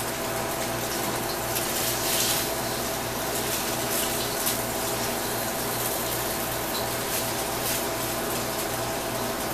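Steady hiss of tofu frying in oil in a wok on a gas range, over the constant hum of a commercial kitchen's exhaust hood, with a few light clicks.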